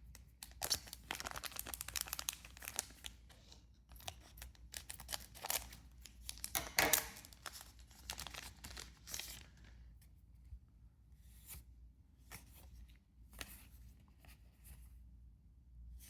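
Foil One Piece Card Game booster pack being torn open and its wrapper crinkled, in two long bouts of tearing and rustling, the loudest about seven seconds in, followed by lighter sporadic rustles of the cards being handled.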